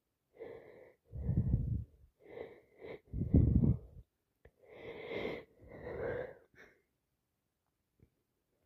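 A person with a heavy head cold sneezing and breathing in wheezily: a run of gasping in-breaths and loud sneezes, then more wheezy breaths that stop about two-thirds of the way through.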